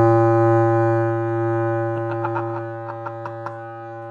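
Homemade air horn made of PVC pipe with a stretched balloon membrane taped over the end, sounding one long steady low buzzing note. The note is loudest at the start and eases a little after about a second and a half, with a few short rattles near the middle and toward the end.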